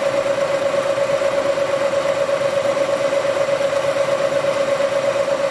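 Bridgeport milling machine running, its end mill cutting out a broken bolt in a Ford six-cylinder head: a steady whine with a constant grinding haze beneath it.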